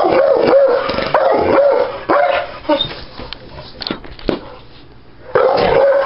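A pit bull barking in a rapid run, about two barks a second, then a few scattered knocks and a short lull before the barking starts again near the end. The barking is aimed at an upright vacuum cleaner that the dog is attacking.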